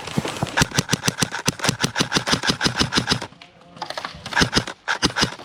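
Airsoft gun firing in rapid full-auto bursts of sharp clacks: a long burst of about two and a half seconds, a brief pause, then a shorter burst about four seconds in.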